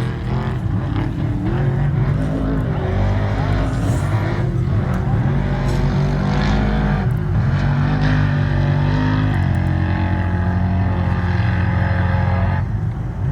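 Trophy truck's engine running hard, its pitch rising and falling with the throttle and gear changes.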